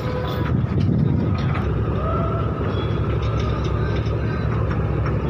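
Heavy engine running steadily with a deep, even rumble, with a few sharp clicks and a faint whine over it.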